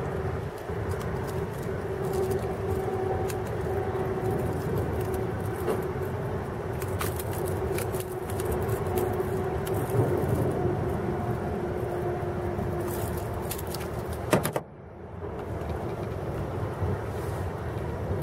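Light metallic clicking of pliers against a topwater lure's treble hooks while a largemouth bass is unhooked, over a steady low hum. A brief knock about three-quarters of the way through, after which the hum drops away for a moment.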